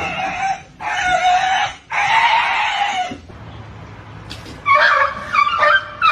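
Animal calls: three harsh, hissing calls in a row with a steady tone running through them, then a quieter stretch, then shorter calls that rise and fall in pitch near the end.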